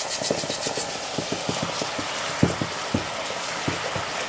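Hot caramelized sugar sizzling and bubbling in a stainless steel pan just after cream has been poured in: a steady hiss with many irregular popping bubbles.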